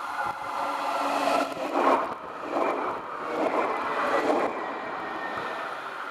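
Alstom Citadis electric tram passing right by, wheels running on the rails. The noise builds, peaks about two seconds in, swells twice more as the tram goes by, and dies away shortly after.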